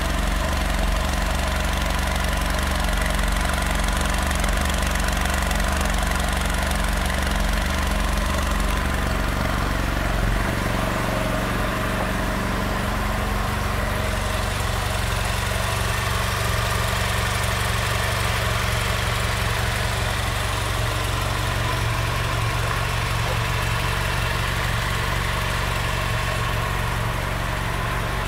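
BMW F800R's 798 cc parallel-twin engine idling steadily, its tone changing slightly about ten seconds in.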